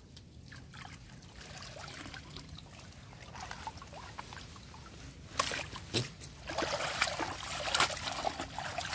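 Water trickling and pouring off a black tube eel trap lifted out of a muddy canal, with splashing as it is worked in the water. The splashing grows busier in the second half, with two sharp knocks around five and six seconds in.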